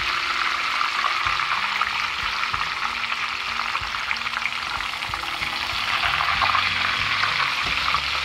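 Breaded, ham-and-cheese-stuffed steaks shallow-frying in hot oil in a skillet: a steady, dense sizzle with fine crackling, while a slotted spatula turns them in the pan.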